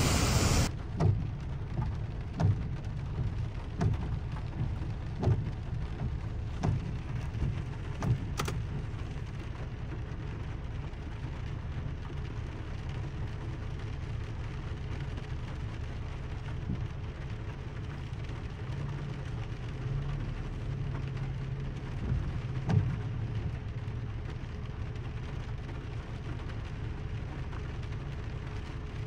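Rain, over a steady low rumble. A louder rushing noise cuts off suddenly in the first second, and soft regular knocks come about every second and a half for the first eight seconds or so.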